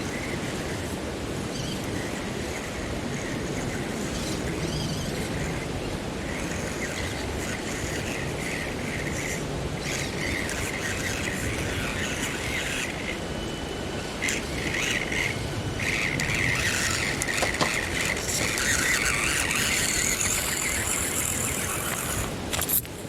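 Small electric motor and gearbox of a micro RC crawler whining high in on-and-off bursts as it is throttled through a crawling line, over a steady outdoor hiss.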